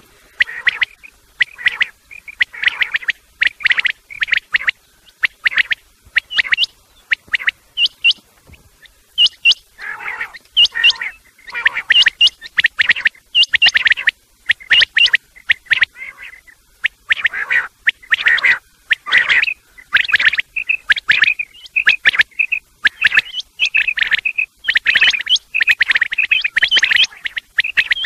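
Quail calling loudly, male and female calls mixed: fast runs of short, high chirping notes in clusters with brief pauses. It is a lure call used to draw quail in for hunting.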